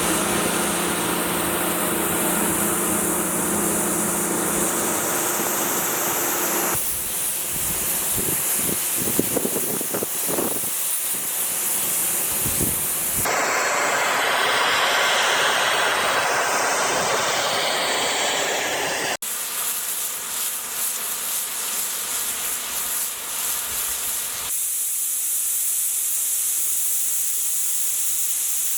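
Snowmaking guns blasting water and compressed air: a loud, steady hissing spray whose character changes abruptly about every six seconds, four times in all. A steady low hum runs under the hiss for the first few seconds.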